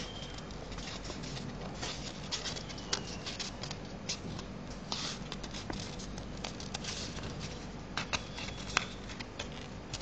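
A sheet of paper being folded and tucked by hand: an irregular run of soft crinkles and small crackles, with a few sharper paper clicks near the end.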